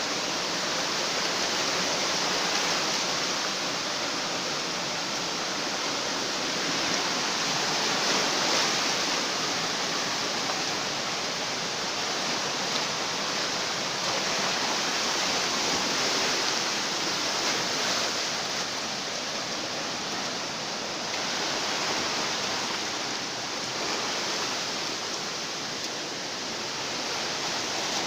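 Fast-flowing floodwater of a flash flood, rushing steadily without a break.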